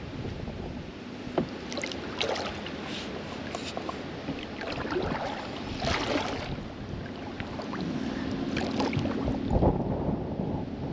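Kayak paddle dipping and splashing in the river in scattered strokes and drips, over a steady rumble of wind on the microphone. A faint steady hum joins in after about seven seconds.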